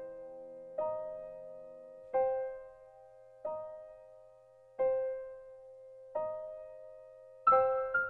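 Background piano music: slow, ringing single notes about every second and a half, quickening into a run of faster notes near the end.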